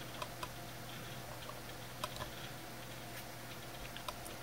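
A few faint, scattered small clicks over a low steady hum and hiss.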